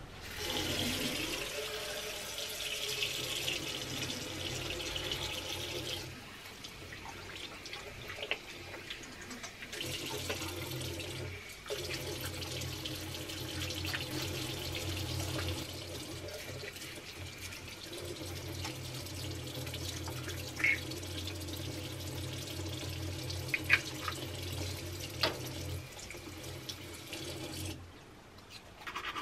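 Bathroom sink tap running, with water splashing into the basin and over hands washed under it. The flow changes a few times, a few light clicks come in the second half, and the water shuts off near the end.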